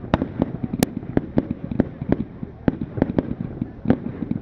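Firework display: an irregular run of sharp bangs, several a second, over a continuous low rumble.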